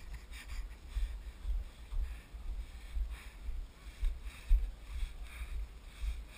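Footsteps on dry grass at a steady walk, about two strides a second, with low thumps and rumble from the body-worn camera jolting at each step.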